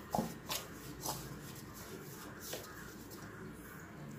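A spoon stirring a dry flour-and-spice mix in a steel bowl, with a few faint short scrapes.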